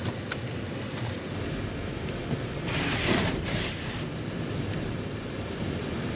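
Car driving on a snow-covered road, heard from inside the cabin: steady engine and tyre noise, with a brief louder hiss about three seconds in.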